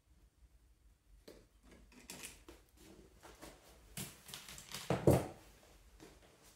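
Faint handling noise from tools and wire: scattered light rustles and clicks, with a small cluster of sharper knocks about four to five seconds in.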